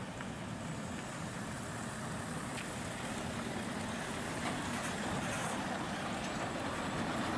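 Scania articulated tipper lorry's diesel engine running as the truck turns past at close range, the engine and tyre noise growing steadily louder.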